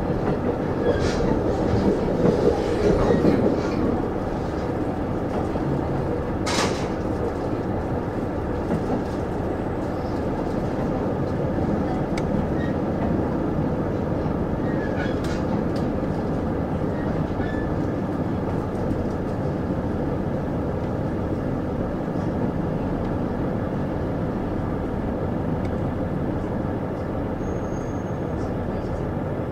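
Steady engine and running noise of a JR KiHa 75 diesel railcar heard from inside the car, a little louder for a couple of seconds near the start, with one sharp click about six and a half seconds in.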